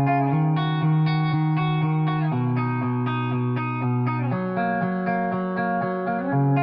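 Background music led by a guitar, plucked chords changing every couple of seconds.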